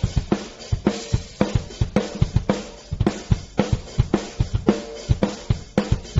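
Drum-led backing music with a fast, steady beat and cymbals.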